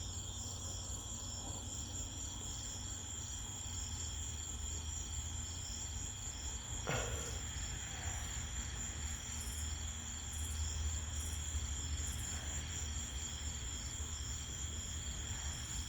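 Crickets chirping in a steady high trill, over a low steady hum. A short falling whistle comes about seven seconds in.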